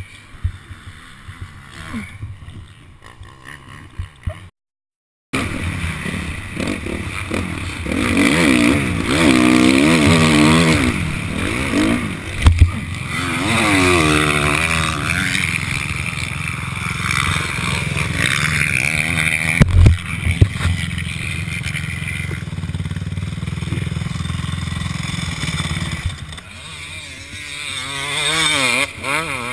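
Helmet-camera sound of a motocross bike: faint rustle and wind at first, a brief dropout about five seconds in, then the engine revving hard, climbing and falling in pitch, with wind buffeting. Two sharp knocks come through, at about twelve and twenty seconds in.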